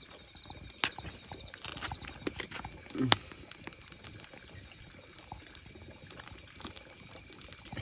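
Wood campfire crackling, with irregular small pops and snaps and one louder snap about three seconds in.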